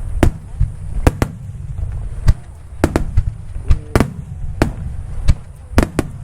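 Aerial fireworks bursting: about a dozen sharp bangs in irregular succession, some in quick pairs, over a continuous low rumble.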